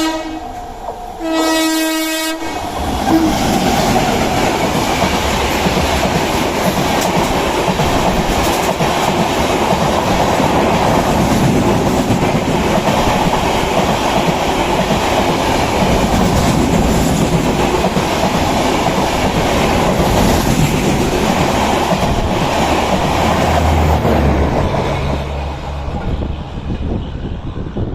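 Train horn sounding two short blasts in the first two seconds, then a passenger train running through a station at speed without stopping: a loud, steady noise of wheels and coaches on the track, which fades near the end as the train goes by.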